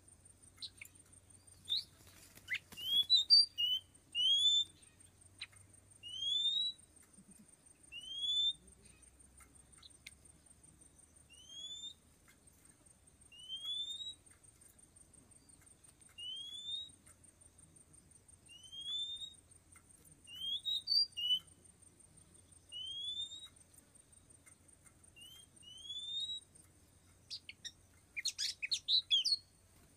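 Oriental magpie-robin calling: a single short rising whistle repeated every second and a half to two and a half seconds, with a quick jumble of notes near the end. A faint steady high whine runs underneath.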